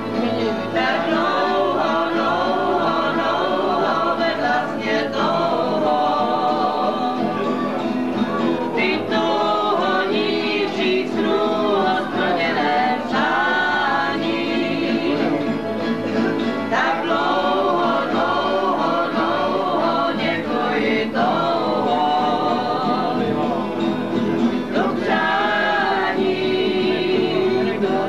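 A group of people singing a song together to strummed acoustic guitars.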